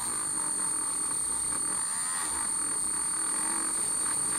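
Dremel rotary tool running at a steady high speed, giving a constant high-pitched whine, with its worn, crumbling wool felt buffing wheel rubbing against a silver-plated metal piece.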